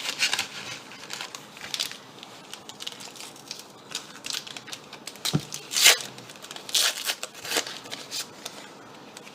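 Foil wrapper of a Panini Adrenalyn trading card pack being torn open and crinkled: a string of irregular crackles and rips, the loudest about six seconds in.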